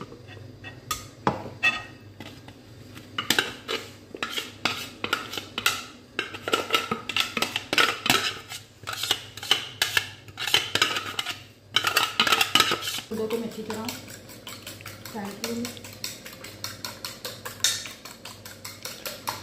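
A spoon knocking and scraping on kitchen bowls, many sharp irregular clinks as chopped coriander and mint are scraped out. About two-thirds of the way through the clinks turn quieter and quicker and more even, a spoon working in a small bowl of beaten egg.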